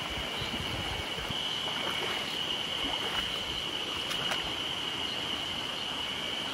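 Mountain headwater stream running over rocks, a steady rush of water, with a steady high-pitched tone above it and a couple of faint clicks about four seconds in.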